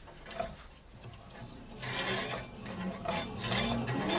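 Bandsaw blade rasping and rubbing as the upper wheel is turned by hand, louder from about two seconds in, while the new blade's tracking on the wheel crown is checked.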